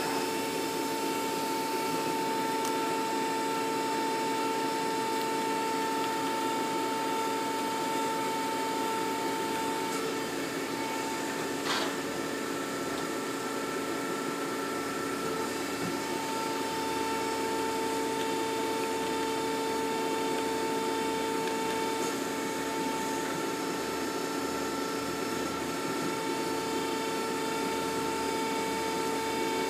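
Okuma & Howa ACT-3 CNC lathe running with its turret carriage traversing along the Z axis: a steady hum carrying several whining tones, one of which drops out for a few seconds near the middle. A single short click comes about twelve seconds in.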